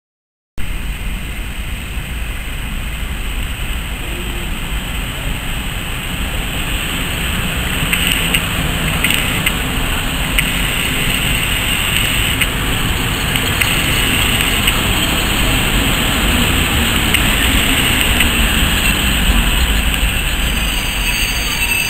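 ET22 electric locomotive hauling a passenger train into a station: a steady running rumble of the locomotive and wheels on the rails that slowly grows louder as it draws in.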